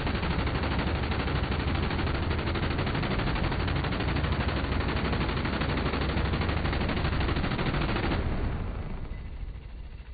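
Rotary-barrel minigun firing one long unbroken burst, its shots too fast to tell apart. The burst stops about eight seconds in and the sound fades away over about a second.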